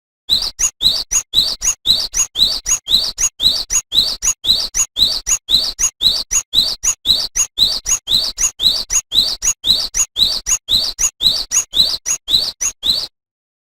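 Cinereous tit (gelatik batu) singing energetically: a fast, even string of short rising whistled notes, about two a second. The song cuts off abruptly near the end.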